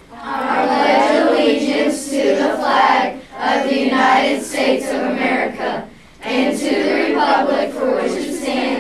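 A class of middle-school children and their teacher reciting the Pledge of Allegiance together in unison, in phrases broken by short pauses.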